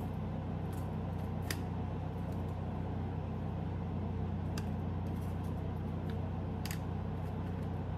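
A steady low machine hum, with three faint light clicks spread through it.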